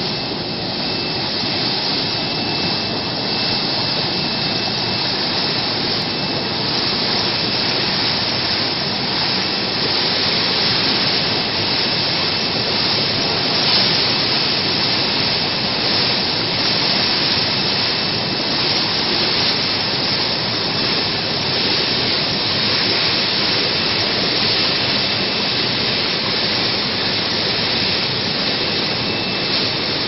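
Air-bubble fruit and vegetable washing machine running: water spraying from its nozzle bars and churning in the stainless-steel tank, a steady rushing noise.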